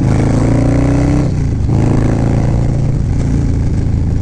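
Harley-Davidson Low Rider S V-twin, with a stage 2 kit and an S&S 475 cam, running through a TBR 2-into-1 exhaust as the bike accelerates, revs rising. About a second and a half in, the revs drop for an upshift, then climb again.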